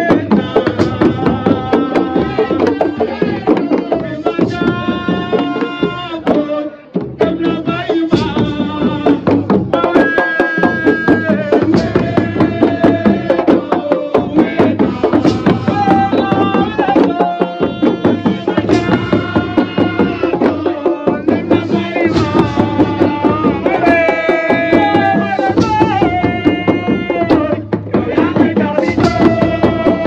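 A man singing in long, held, bending lines over a fast, dense rhythm of hand drums.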